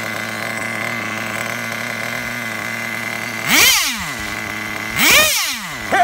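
Traxxas Jato 3.3's two-stroke nitro engine idling steadily, then revved sharply twice, about three and a half and five seconds in, each rev falling straight back to idle.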